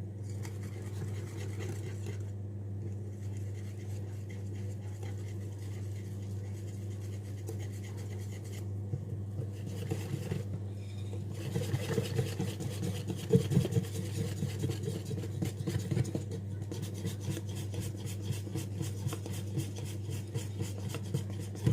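Pancake batter being whisked in a bowl: scraping and rubbing that grows busier about halfway through, then turns into quick, rapid taps of the whisk against the bowl for the last several seconds, over a steady low hum.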